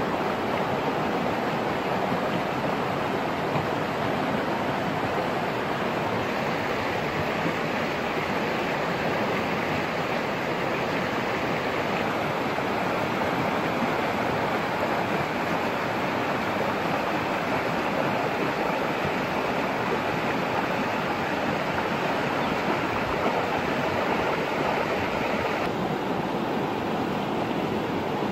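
Fast-flowing stream rushing over rocks: a steady, unbroken water noise.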